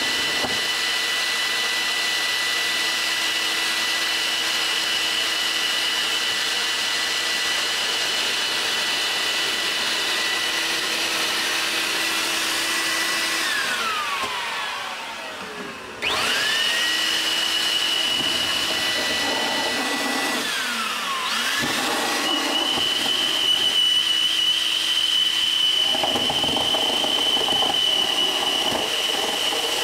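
Home-built propane gas turbine made from a Buick Grand National turbocharger, its turbine whining at a steady high pitch over a rushing roar. About halfway the whine falls in pitch and the sound fades as the turbine spools down with its flame gone, then the sound abruptly comes back; the whine dips once more a few seconds later before holding steady again.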